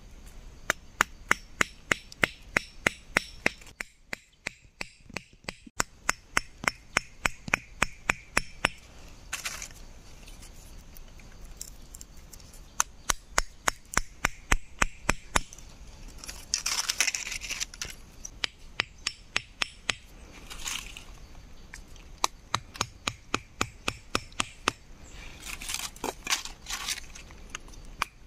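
Machete blade striking a wooden stick in quick runs of sharp knocks, about four a second, with short rustles of handling between the runs.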